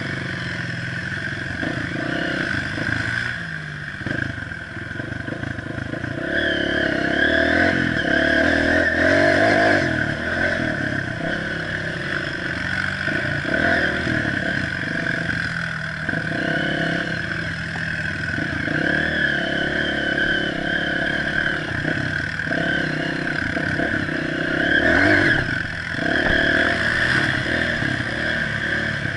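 Honda CRF230F dirt bike's single-cylinder four-stroke engine running under way on a dirt trail, the throttle opening and easing off, with louder pulls about a quarter of the way in and again near the end.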